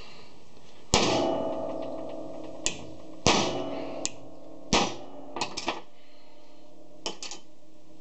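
A hammer striking a steel punch set on a copper battery-cable lug held in a vise, crimping it by denting the lug into the cable: a string of hard metal blows, the heaviest about a second in, with two more big strikes and several lighter knocks after, each heavy one leaving a short metallic ring.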